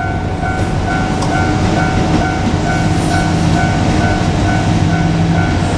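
Japanese level crossing warning bell ringing its rapid repeated tone, over the low engine hum and rumble of a JR Kyushu KiHa 200 diesel railcar at the crossing.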